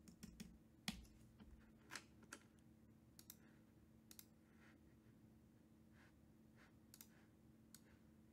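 Near silence broken by faint, sharp clicks at irregular intervals, roughly one a second, over a low steady hum.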